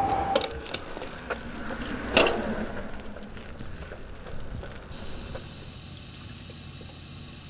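Road bicycle riding: wind and tyre noise with a few sharp clicks, the loudest about two seconds in. From about five seconds in, a fainter steady hum takes over.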